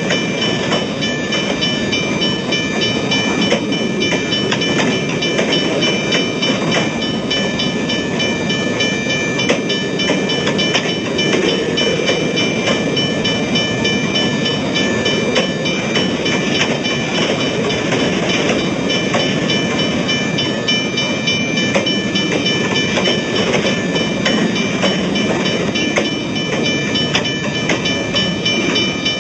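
Railway level-crossing warning bell ringing continuously at a lowered pitch while a train passes with a steady rumble and clatter of wheels on rails.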